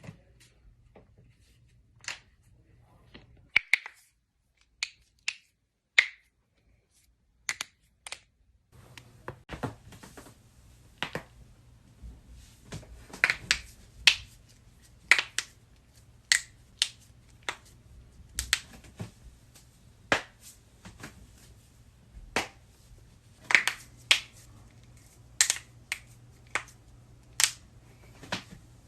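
Human joints cracking: a long run of sharp, separate pops and clicks, about one or two a second, with a short silent gap a few seconds in.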